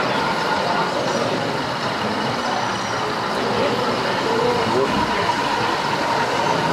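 Steady hubbub of a busy hall: many people talking at once, with no voice clear enough to make out.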